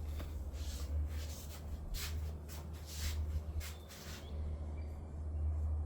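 Soft rustling and scraping handling noises, several of them in the first four seconds, over a steady low hum.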